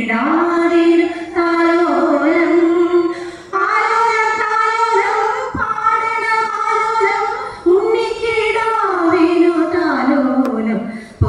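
A group of five women singing a song together, in long held phrases that break off briefly about three and a half and seven and a half seconds in.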